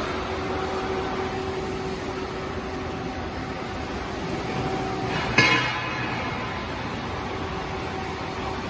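Factory workshop ambience: a steady machinery hum with a faint steady tone, broken about five seconds in by one sharp knock with a brief ring.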